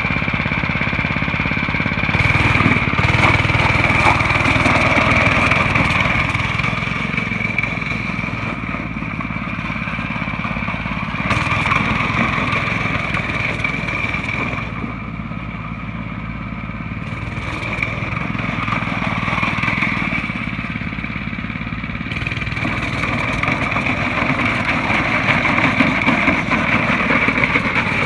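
Small Hammerhead Torpedo kids' go-kart engine running as the kart drives on gravel pushing a plastic toy ride-on car, its level rising and falling.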